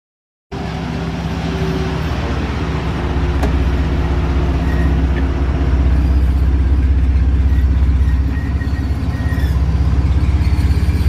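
GMC pickup truck's engine idling with a steady low rumble, starting about half a second in.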